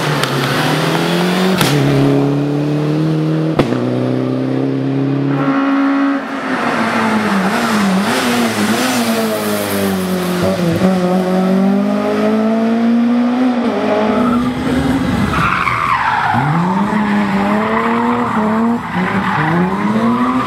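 Rally cars, a Mitsubishi Lancer Evolution and then a Volvo C30, driven hard on a tarmac stage. Their engines rev up and drop back again and again through gear changes, with tyre squeal in the corners. A sharp crack comes a few seconds in.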